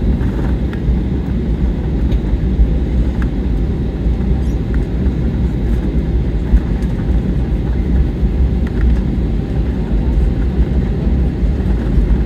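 Steady low rumble inside an airliner's cabin, with the jet engines running on the ground shortly before takeoff, and a few faint clicks and rattles.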